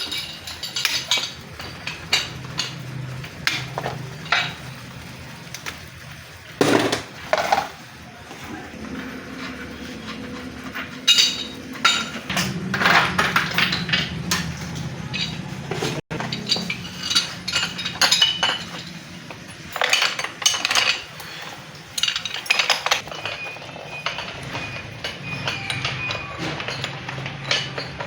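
Metal parts and tools clinking and knocking as they are handled, in an irregular run of sharp clinks and taps.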